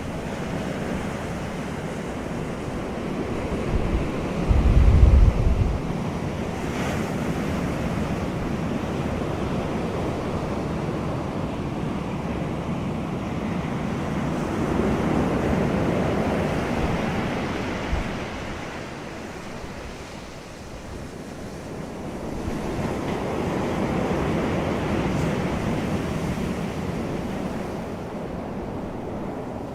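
Ocean surf washing in, a steady rushing of waves that swells and eases every several seconds. A brief, deep rumble stands out about five seconds in.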